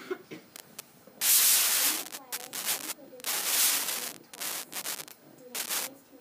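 Repeated loud rubbing swishes, five or six of them, each lasting up to about a second, with faint voices underneath.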